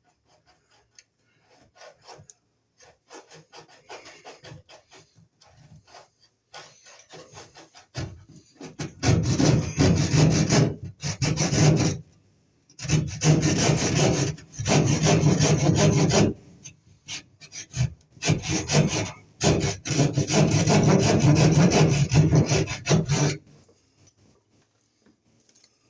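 Keyhole saw cutting through a wall: light, scattered strokes at first, then steady back-and-forth sawing in four long runs with short pauses between.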